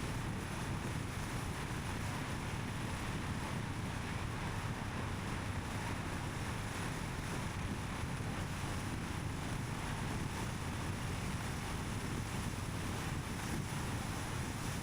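A car driving at a steady speed: a constant low rumble of tyres on the road with wind noise, unchanging throughout.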